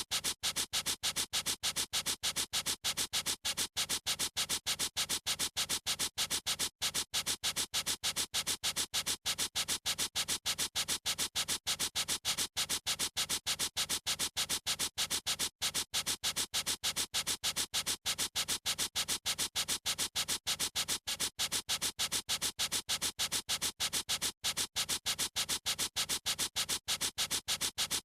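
Marker pen scribbling back and forth on paper in a steady run of quick, even strokes, a hissing scratch with no pauses.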